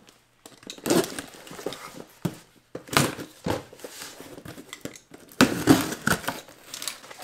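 Packaging being torn open and handled, crinkling and rustling in irregular bursts, loudest about five and a half seconds in.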